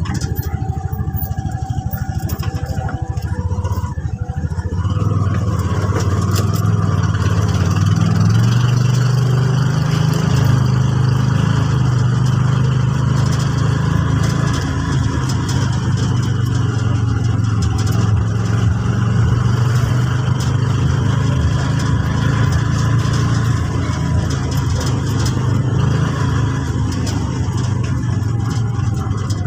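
A vehicle's engine running steadily while driving, with road noise, picking up in level about four seconds in.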